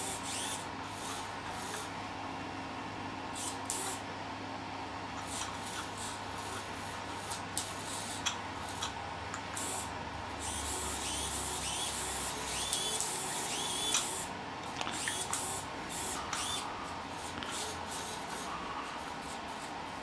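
Two small hobby servo motors whirring in short bursts, their pitch sliding up and down as they follow the joystick's movements, loudest around the middle. Light clicks and rubbing from the plastic joystick being moved run throughout.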